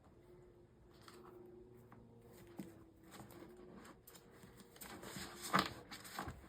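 Paper planner inserts and dividers being handled, with soft rustling, scattered small clicks and one sharper click about five and a half seconds in.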